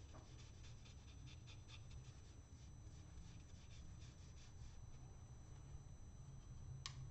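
Faint strokes of a watercolor paintbrush brushed back and forth on paper, several a second, dying away about halfway through. A single sharp click near the end.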